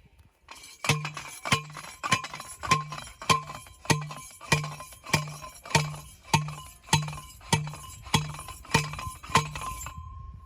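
A fence post being driven into the ground with about fifteen steady metal-on-metal strikes, roughly two every second. Each strike rings with a bright clink and a short dull thud, and the post goes in easily.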